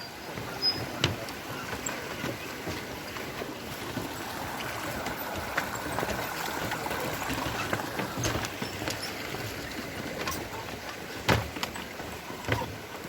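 Steady rush of a flowing mountain creek, with a few sharp knocks, the loudest near the end.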